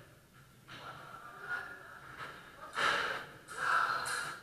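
A person breathing hard: a few faint breaths, then two loud, breathy ones close together about three seconds in.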